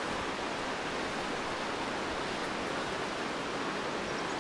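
Gray Wolf River's flowing water rushing steadily, an even hiss with no breaks.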